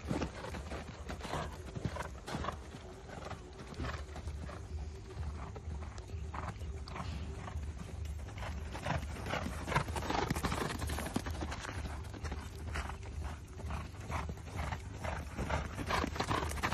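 Hoofbeats of a horse cantering on sandy ground, an irregular run of thuds over a steady low rumble.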